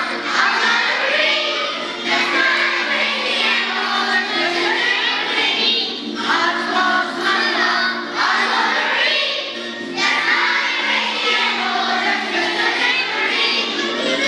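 A roomful of kindergarten children singing a song together in unison, led by women teachers, over an instrumental accompaniment. The singing comes in short phrases with brief breaks between them.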